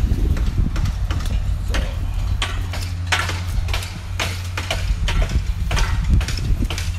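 Construction-site noise: irregular sharp clicks and clinks, about one or two a second, over a steady low hum.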